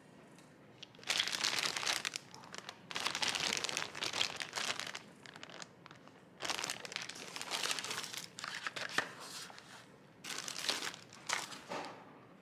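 Clear plastic packaging bag crinkling as it is handled, in several bursts of a second or two with short pauses between.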